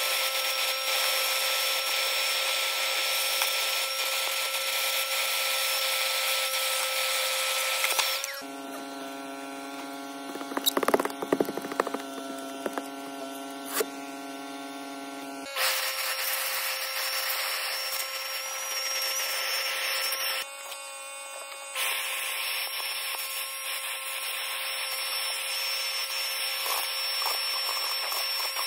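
Shop vacuum running steadily with a high whine and rushing hiss, sucking dirt and debris through its hose off the truck's floor. For several seconds in the middle the sound drops to a quieter, lower hum with some brief clattering, then the full whine returns.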